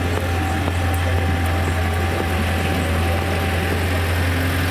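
Engine of a trackless road-train ride, a tractor unit on rubber tyres dressed as a steam locomotive, running steadily with a low hum as it drives slowly past.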